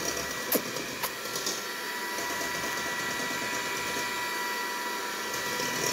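Electric hand mixer running steadily in a stainless steel bowl, beating oil and eggs, with a steady whine. Two sharp clicks come about half a second and one second in.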